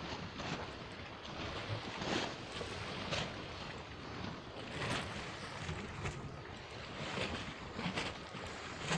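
Seawater lapping and splashing in small irregular surges about once a second, over steady wind noise on the microphone.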